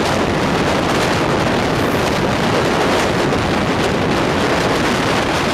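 Steady, loud rush of wind and wheel noise from a passenger express running at about 130 km/h while it crosses a freight train of open wagons on the adjacent track, with wind buffeting the microphone and a few faint clicks from the rails.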